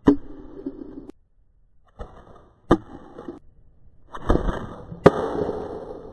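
Pulley slingshot shooting steel balls: three sharp cracks, about two and a half seconds apart, with rustling handling noise between them.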